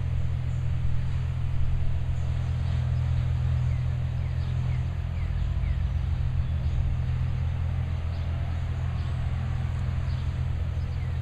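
A heavy engine running steadily as a constant low hum, with no change in speed.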